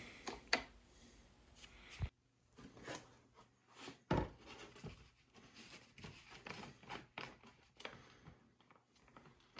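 Faint scattered clicks, scrapes and small knocks of a flathead screwdriver working a tight filler cap loose on a chainsaw, with the saw being handled; two sharper knocks come about two and four seconds in.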